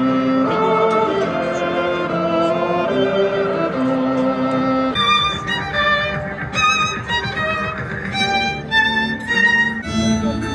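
Solo violin playing a melody: slow, held lower notes at first, then from about halfway higher, shorter notes with vibrato.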